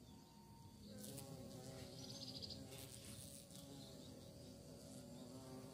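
A bee buzzing faintly in flight, coming in about a second in, its pitch wavering as it moves about.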